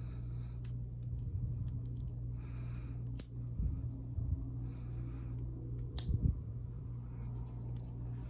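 Close-up handling noises of a wristwatch and its packaging: soft rustling and two sharp clicks, about three seconds in and again about six seconds in. Heavy breathing sits close to the microphone over a steady low hum.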